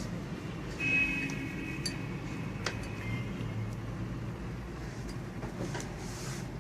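A single clink against a drinking glass of water, ringing for about two seconds, then a couple of light taps, over a steady low hum.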